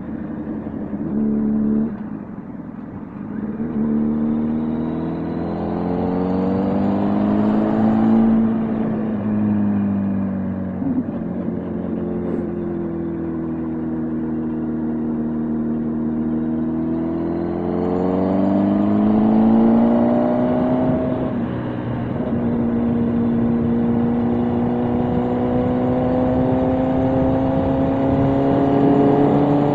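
Motorcycle engine running on the road, its revs climbing and easing off several times and rising slowly near the end, over a steady rush of wind noise.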